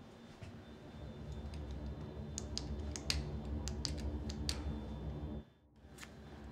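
Buttons on an Ingenico card-terminal keypad pressed one after another: a run of sharp clicks between about one and four and a half seconds in, and one more near the end, over a low steady hum.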